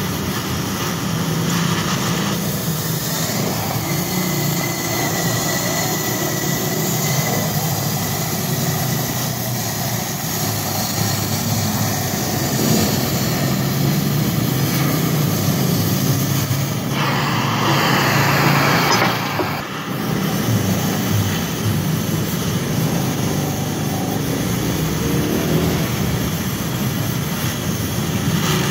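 Oxy-fuel gas cutting torch burning through thick steel with a steady hiss as it cuts a circle, with a louder rush of hiss for a couple of seconds a little past halfway.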